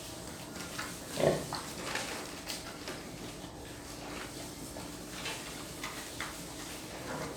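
A pig gives one loud grunt about a second in. Scattered small clicks and knocks follow.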